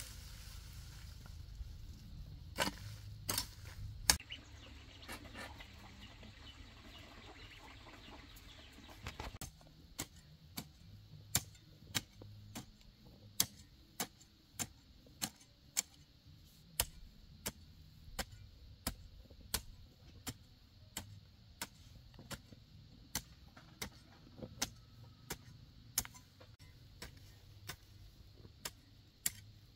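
Hand hoe chopping into dry, loose soil: a few scattered knocks early, then from about ten seconds in a sharp strike roughly every 0.7 seconds.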